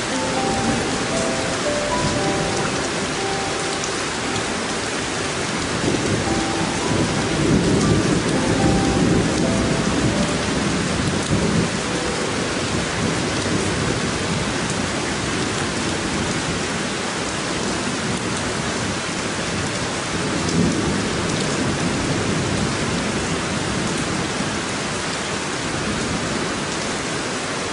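Steady rain with thunder rumbling: a long rumble swells from about six to twelve seconds in, and a shorter one comes near twenty seconds.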